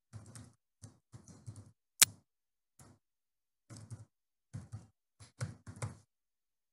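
Computer keyboard keystrokes typing a password in quick irregular clusters of clicks, with one sharper, louder click about two seconds in.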